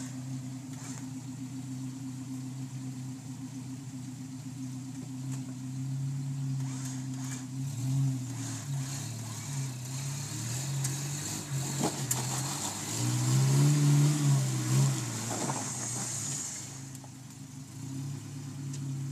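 Electric winch on a Toyota 4Runner pulling the truck up a muddy hill climb, its motor humming steadily under load with the truck's engine running. About twelve seconds in the pitch wavers and the sound swells to its loudest for a few seconds, then settles again.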